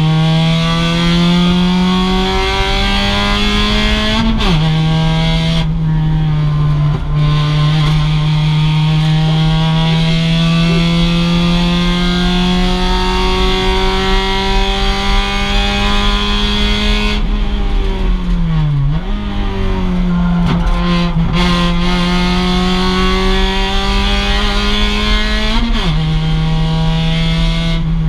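2006 Mazda MX-5 race car's four-cylinder engine under hard acceleration, its pitch climbing slowly through a gear. A quick upshift comes about four seconds in, and the car brakes with falling revs and a downshift about two-thirds of the way through before pulling hard again.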